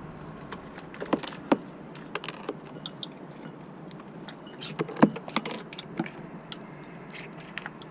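Birds pecking at seed on a feeding tray: irregular sharp taps, a few louder ones about a second in and about five seconds in, over a steady rush of strong wind.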